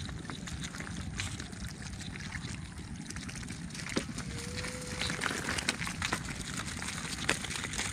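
Water trickling and dripping, with scattered small clicks and rattles, as the catch of fish and shells is emptied from a cylindrical bamboo cage trap into a woven basket.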